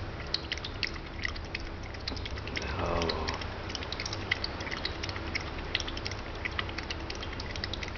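A puppy lapping water thirstily from a glass bowl: an irregular run of quick wet clicks, several a second. About three seconds in, a short voice sound that falls in pitch.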